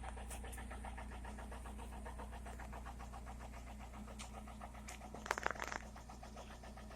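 Toyota Corolla E110's 4E-FE four-cylinder petrol engine running, with a fast, even knocking from the engine. A brief clatter comes about five and a half seconds in.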